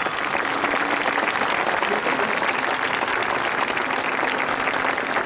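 Large audience applauding steadily: dense clapping from many hands.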